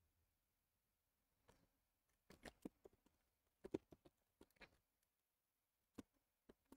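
Faint computer keyboard keystrokes: a few irregular clusters of quick taps with pauses between them, over otherwise near-silent room tone.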